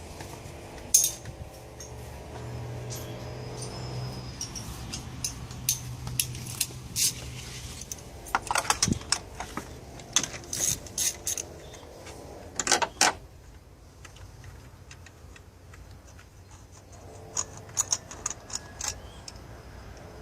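Metal hand tools and parts clinking in scattered sharp clicks while spark plugs are taken out of the engine for checking, over a low steady hum.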